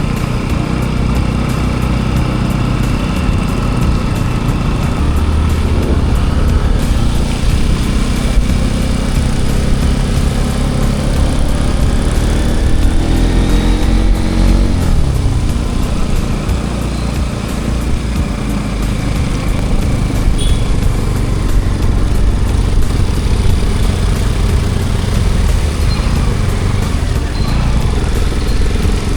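Motorcycle engine running while riding along, its pitch dipping and climbing again about halfway through.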